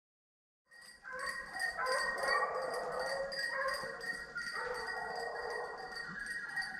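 A pack of scent hounds baying in chorus on a freshly raised wild boar, long overlapping cries starting about a second in.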